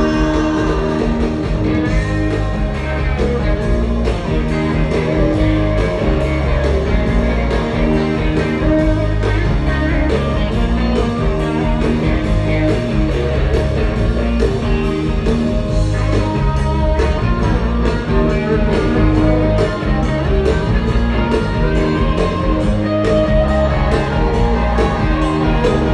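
Live rock band playing, led by guitars, with a steady beat.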